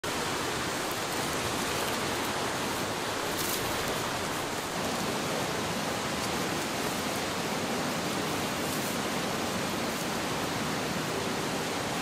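Steady rush of fast-flowing water, an even unbroken noise at a constant level, with a couple of faint crackles from footsteps in dry leaves.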